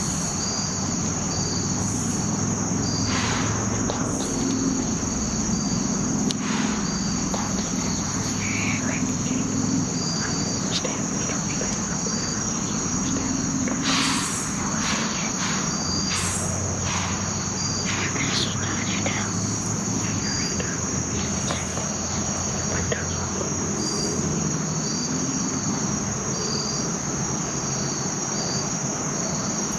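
Insects trilling in a steady high chorus, with a second, pulsing insect call repeating over it, and a few faint rustles and clicks here and there.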